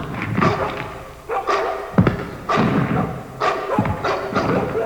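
A series of heavy thumps, about one to two a second, each followed by a brief cry-like sound, from a Halloween sound-effects recording.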